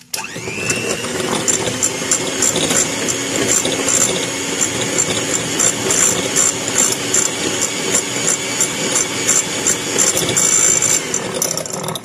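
Electric hand mixer switched on, its motor spinning up with a rising whine and then running steadily as the beaters whisk a thin mix of egg yolks and butter in a glass bowl, with many sharp clicks of the beaters against the glass. It switches off abruptly near the end.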